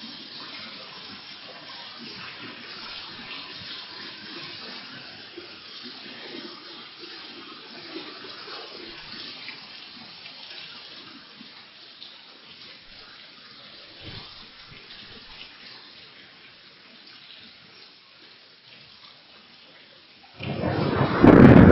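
Heavy rain pouring steadily and slowly easing off. About twenty seconds in, a sudden loud clap of thunder breaks in and rumbles on.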